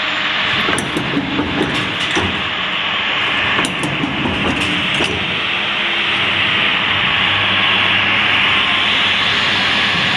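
CNC tube hole-punching machine running: a loud steady hiss, with a run of sharp clicks and metal knocks in the first half and a low hum coming in after about seven seconds.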